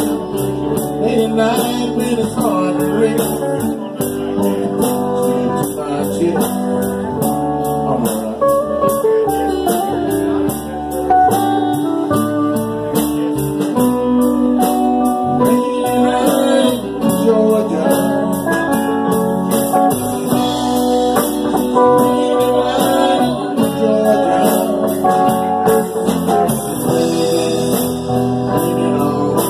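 Live band playing a slow blues-soul number: electric guitar and a singing voice over a steady beat of cymbal ticks.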